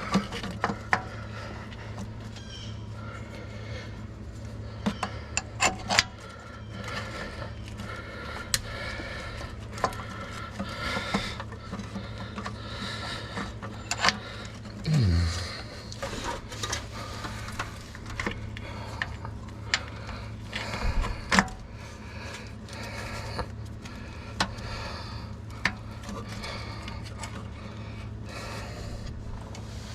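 Rubbing and scraping with scattered light clicks and knocks, from a replacement starter being positioned against the underside of a Chevrolet Silverado and its mounting bolts being started by hand. A steady low hum runs underneath.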